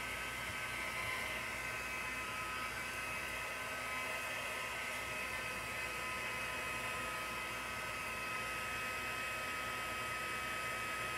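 Handheld embossing heat gun running steadily: a constant blowing hiss with a thin steady whine, heating the card's coating until it turns from cloudy to clear and glossy.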